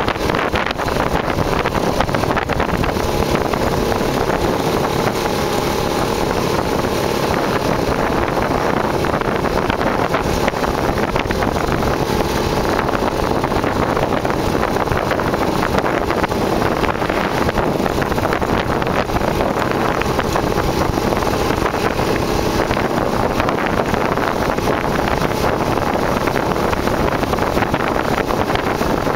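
IŻ two-stroke motorcycles riding in a column on the road, engines running steadily at cruising speed, mixed with wind rush on the microphone.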